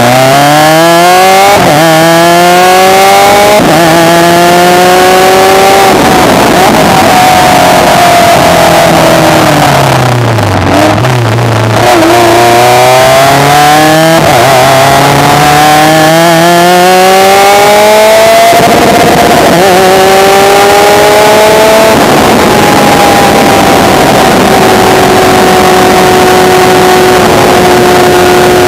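Elan NP01 prototype race car's engine at full throttle, heard onboard: its pitch climbs and drops sharply at several quick upshifts in the first six seconds. It then falls away as the car lifts and slows about ten seconds in, climbs through more gears, and settles into a steadier note near the end.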